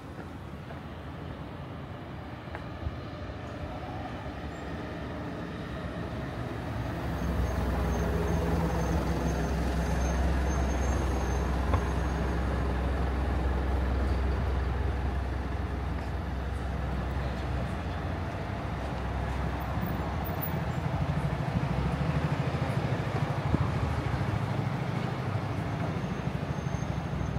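Road traffic passing close by on a busy avenue. About a quarter of the way in a heavy vehicle's low engine rumble grows loud and holds for several seconds, eases, then comes up again in the second half.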